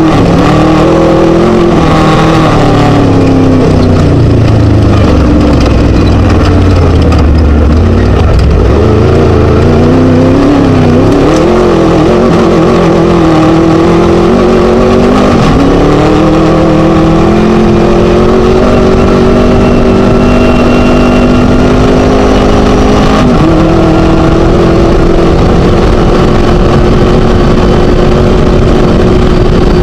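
Scat V4 engine of a class 1 desert race buggy running hard, its revs rising and falling unevenly for the first ten seconds or so. It then climbs slowly and steadily, with a sudden change in pitch about twenty-three seconds in.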